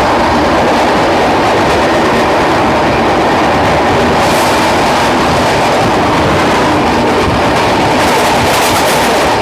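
Duronto Express coach running along the track: a loud, steady rumble and rattle of wheels and coach that never breaks off.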